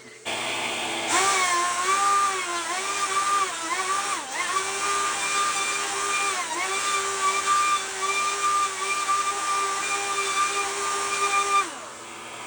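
Electric wood router running at high speed, a steady high whine whose pitch dips briefly several times as the bit bites into the wood, before it is switched off near the end.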